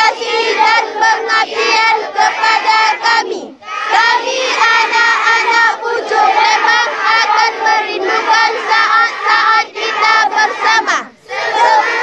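A large group of schoolchildren's voices loud together in unison, singing or chanting as one, with a short break about three and a half seconds in and another near the end.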